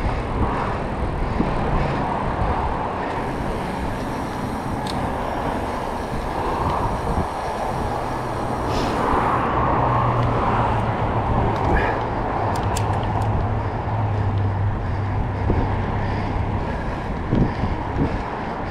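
Steady road traffic noise heard from a moving bicycle. A low engine hum from a passing vehicle runs through the middle for about nine seconds, and a few faint clicks come about two-thirds of the way through.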